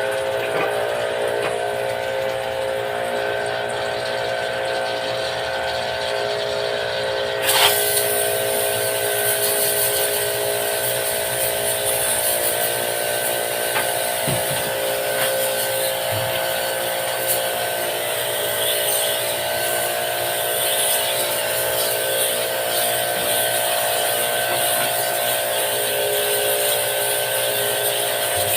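Electric pressure washer pump running with a steady whine; about seven and a half seconds in, the water jet starts spraying with a continuous hiss.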